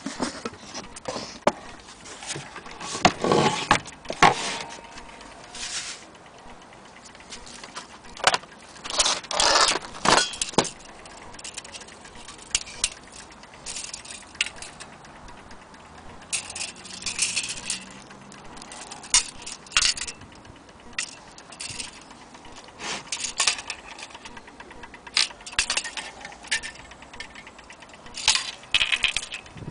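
Irregular bursts of metallic jangling and clatter, each lasting about a second, from small metal objects being handled.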